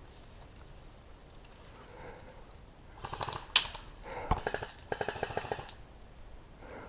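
Airsoft guns firing rapid automatic bursts of sharp clicking shots, starting about three seconds in and lasting a little over two seconds, with one louder crack and a heavy knock in the middle.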